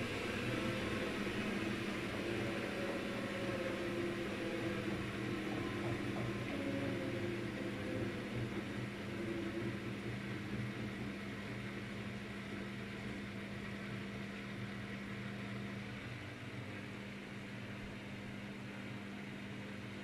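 Daewoo DWD-FT1013 front-loading washing machine winding down from a spin with an unbalanced load: the motor's hum and the drum's whir fall slowly in pitch and grow gradually quieter as the drum slows.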